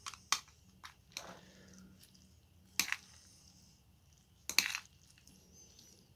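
Metal chopsticks clinking against a ceramic bowl while stirring thick noodles, a few scattered sharp clinks with a quick cluster about four and a half seconds in.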